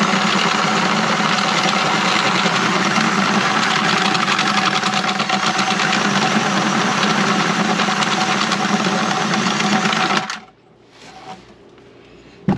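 Cordless drill spinning a drum drain auger, a steady whirr as the snake's cable is drawn back out of a clogged kitchen drain line. The drill stops suddenly about ten seconds in, and a brief sharp knock follows near the end.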